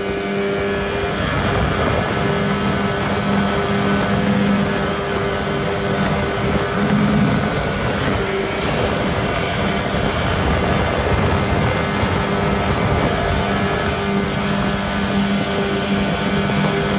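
Twin Tohatsu 30 hp outboard motors running together at high speed, a steady loud drone with the rush of water and spray from the planing aluminium hull underneath. The pitch dips briefly about eight seconds in.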